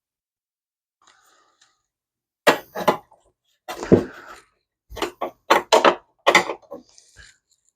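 Irregular run of about ten sharp knocks and clatters from hand work on the parts of an old car dashboard, starting a couple of seconds in.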